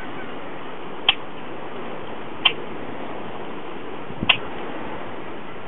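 Male boat-tailed grackle giving sharp, dry clicks: three single clicks about a second and a half apart, with a soft low thump just before the third, over a steady hiss.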